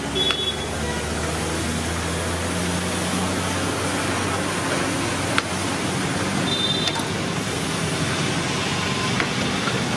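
Steady roadside traffic noise, with a low engine hum close by for the first three seconds or so. A few light clicks sound later, and a brief high beep comes about six and a half seconds in.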